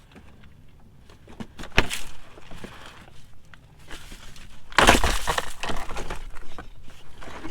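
Belly pan coming off the underside of a car: scattered clicks and a sharp knock, then from about halfway a loud stretch of crackling and scraping as the panel is pulled free and handled.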